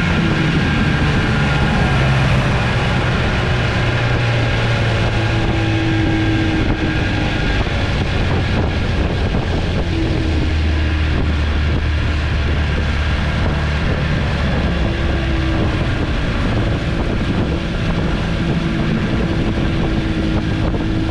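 1967 Evinrude Fastwin 18 hp two-cylinder two-stroke outboard running steadily under way at speed, with wind noise on the microphone.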